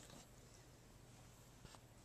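Near silence: room tone with a faint steady low hum and a couple of faint clicks.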